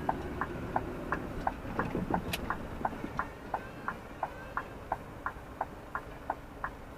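Lorry cab's indicator flasher ticking steadily, about three clicks a second, alternating between a higher tick and a lower tock, over a faint low rumble.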